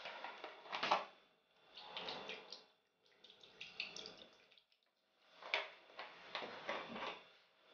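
Milk pouring from a carton into a plastic mixing bowl in a few short runs, with light knocks from the carton being handled.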